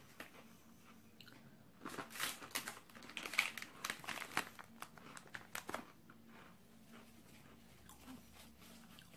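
A plastic snack packet crinkling in the hands for about four seconds, starting about two seconds in, while a small crunchy pineapple biscuit is being chewed.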